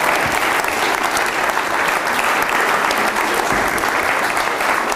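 Audience applauding: many hands clapping steadily and densely throughout.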